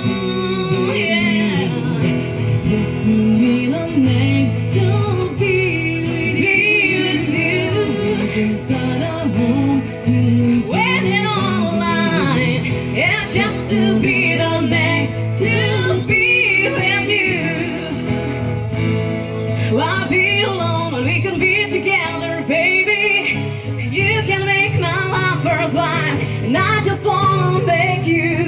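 Live band music from a stage PA: guitars and a steady bass under a high, wavering lead melody line, during a stretch of the song with no sung words.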